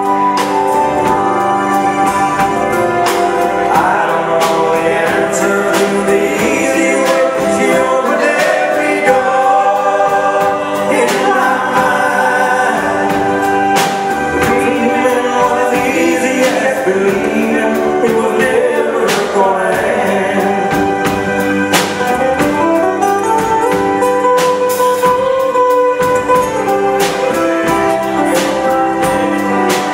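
Live pop band playing: singing over guitars, bass, keyboards and a drum kit keeping a steady beat.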